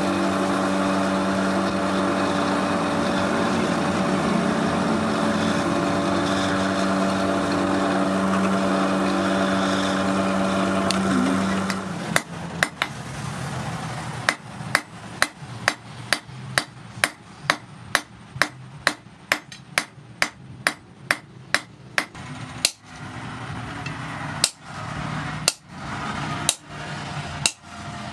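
A small electric power hammer runs with a steady hum for about twelve seconds, then stops. After that comes hand hammering on rebar on a steel anvil: sharp blows at about two to three a second, with short pauses near the end.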